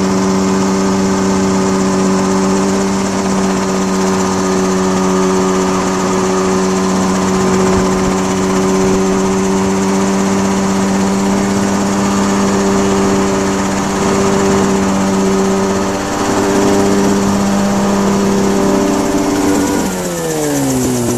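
Radio-controlled model aircraft's motor running at a steady pitch, heard from on board. About nineteen seconds in, the pitch slides steeply down as the aircraft sets down on the pavement and the motor winds down.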